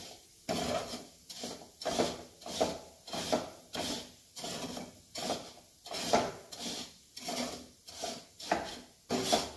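A metal ladle scrapes and stirs dry, granular sugar around a metal kadhai in quick repeated strokes, about two a second. The boiled sugar syrup is being stirred until it sets into a crumbly, granular sugar (bura).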